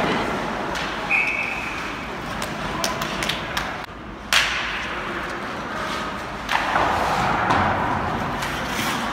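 Ice hockey game in an arena: steady crowd noise with sharp knocks of sticks and puck, the loudest about four seconds in, and a brief high whistle-like tone about a second in. The crowd noise rises near the end.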